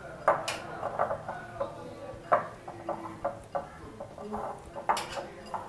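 A hand mixing a dry, crumbly mix of roasted besan flour, powdered sugar and nuts in a glass bowl: a soft rustling of the flour with irregular clicks and knocks against the glass.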